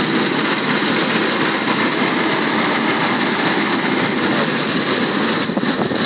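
Small single-cylinder Robin petrol engine on a one-bagger concrete mixer running steadily.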